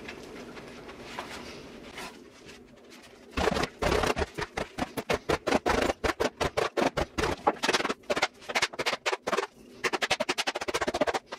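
Rapid, repeated sharp strikes on the leather pocket of a new Wilson A2K baseball glove as it is pounded with a mallet and ball during break-in. The strikes start about three seconds in and come several times a second, spacing out somewhat near the end.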